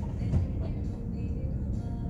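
Steady low rumble aboard a container ship under way at sea, with faint music over it.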